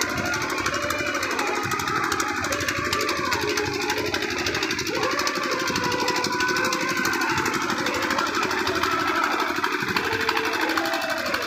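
An engine running steadily with a rapid, even knocking, under a hubbub of voices and some faint music.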